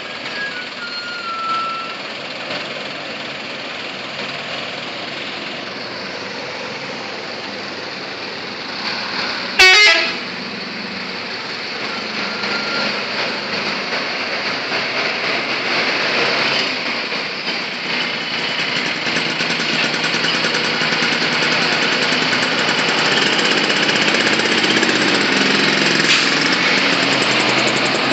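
Bus horn sounding once, briefly and loudly, about ten seconds in. Then steady bus and road noise grows gradually louder.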